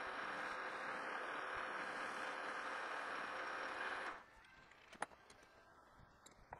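Precision Matthews PM-1127 metal lathe running with its chuck spinning, a steady mechanical whir that is switched off about four seconds in, followed by a single sharp click.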